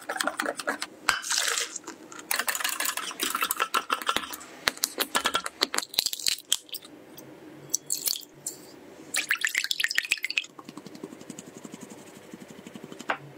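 A wire whisk clicking and scraping fast against a glass bowl as liquid is poured into the batter, with a few knocks as eggs are cracked, then more quick whisking. Near the end, a quieter, even rustle of flour being shaken through a mesh sieve.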